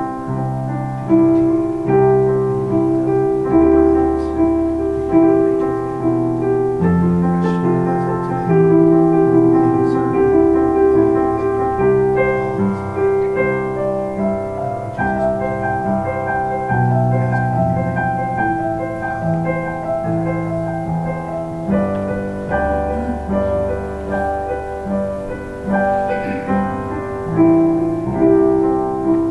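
Keyboard playing slow piano music, with held chords changing every second or two.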